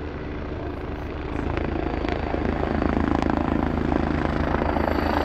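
Eurocopter EC155 B1 helicopter hovering low as it comes in to land: the rapid steady beat of its main rotor with a high turbine whine. It grows louder about a second and a half in as it descends close by, and a thin high whine comes in partway through.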